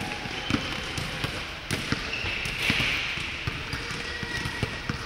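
Basketball being dribbled on a wooden indoor court: repeated, irregularly spaced bounces in a large hall.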